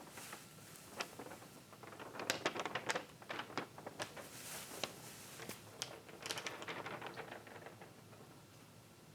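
Foley rustling of dry straw or grass for characters moving through it: irregular crunching steps and crackles, dying away near the end.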